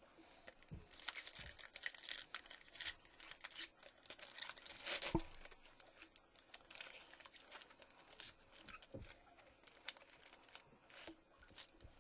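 Shiny foil wrapper of a Topps Chrome football card pack being torn open and crinkled in the hands: a dense run of crackles, loudest about five seconds in.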